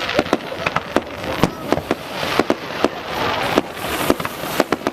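Fireworks going off: a dense, irregular run of sharp bangs and cracks, several a second, over a steady crackling hiss.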